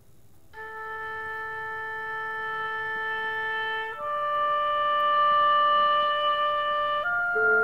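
Slow instrumental aria in long held notes, starting about half a second in. Each note lasts about three seconds, and a second line of notes joins near the end.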